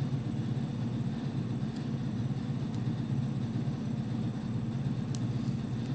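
Steady low background hum, with a few faint clicks as a strip of clear contact paper is pressed and smoothed onto a plastic transparency sheet; the clearest click comes near the end.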